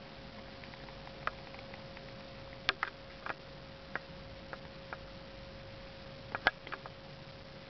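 Irregular small clicks and ticks, about a dozen, loudest a little under three seconds in and again near six and a half seconds, over a steady hiss and a faint steady hum-like tone.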